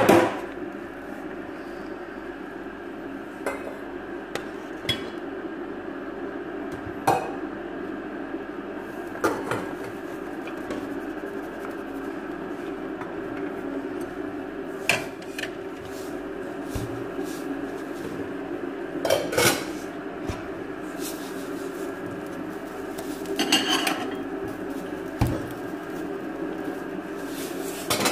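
Scattered clinks and knocks of utensils and ingredients against a metal cooking pot as it is filled with chicken, onions and spices, over a steady low hum.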